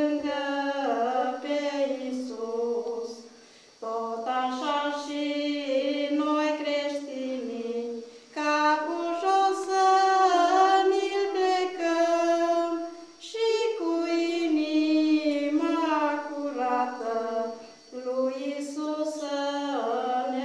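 A group of children singing a song unaccompanied, in phrases of about four seconds with short breaks between them.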